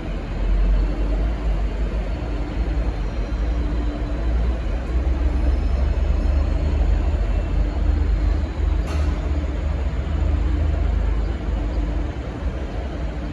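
V/Line N class locomotive's EMD 645 V12 two-stroke diesel engine idling at the platform: a steady deep rumble. A short sharp sound cuts across it about nine seconds in.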